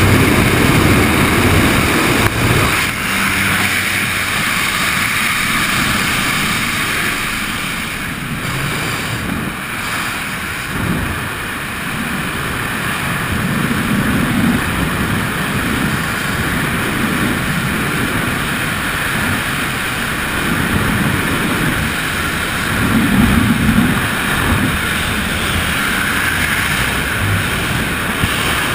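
Freefall wind rushing and buffeting a helmet-mounted camera's microphone, a loud steady rush. At the start it is the aircraft's noise at the open door, changing to the freefall wind about two and a half seconds in, after the exit.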